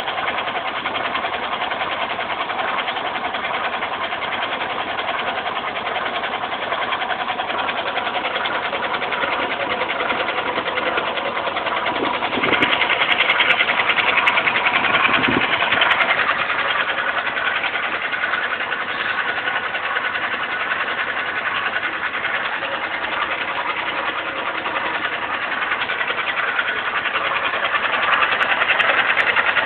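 Bajaj Platina 125 motorcycle's single-cylinder engine running with a fast, even mechanical ticking that the owner cannot identify. It gets louder for a few seconds around the middle and again near the end.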